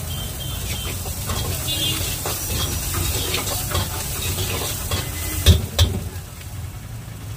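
Chopped vegetables sizzling in an iron wok while a steel ladle stirs and scrapes through them with short clicks. Two sharp metal clanks come about five and a half seconds in.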